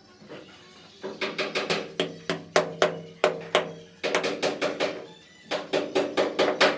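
A hand slapping the face of a freshly set ceramic wall tile to bed it into the adhesive: two quick runs of sharp slaps, about five a second, each ringing briefly. The first run starts about a second in, and the second follows a short pause.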